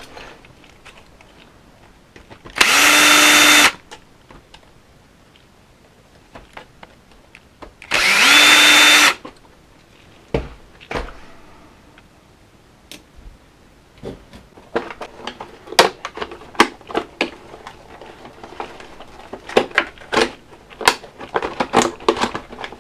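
A small cordless drill/driver runs twice in short bursts of about a second each, several seconds apart, the second spinning up at its start. Later come many light clicks and rattles of small parts being handled.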